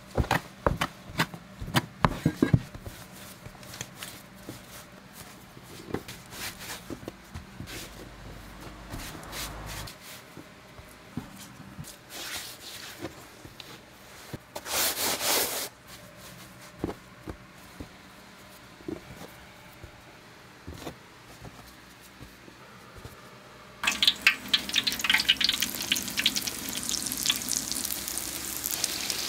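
Scattered knocks and taps of dough work on a floured board: a metal scraper cutting the dough and hands shaping twists. After a cut, kkwabaegi (Korean twisted doughnuts) fry in hot oil with a steady, dense sizzle and crackle.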